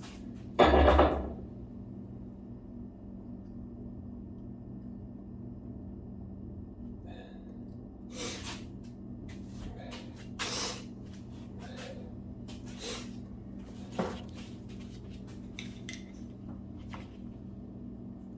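Metal engine parts and hand tools being handled during an LS V8 teardown: a heavy clunk about a second in, then scattered clinks and scrapes over a steady low hum.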